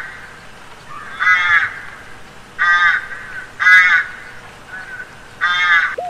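Crow cawing: four caws spaced a second or so apart.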